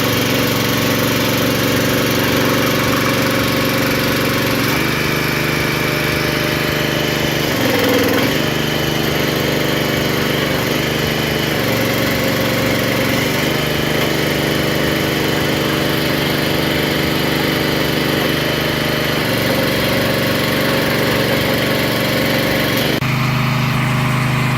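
Loncin single-cylinder petrol engine on a log splitter running steadily. Its pitch steps down and back up several times, with a brief dip about eight seconds in and an abrupt change near the end.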